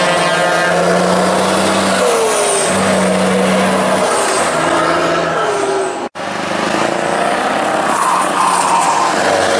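Heavy trucks driving slowly past: diesel engines running, with a low truck air horn sounding in several blasts over the first six seconds. The sound breaks off sharply about six seconds in, and another truck's engine is heard approaching.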